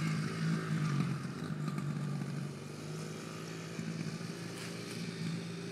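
Small 70cc kids' dirt bike engine running at a steady, low speed at a distance, getting quieter about halfway through as the bike moves away.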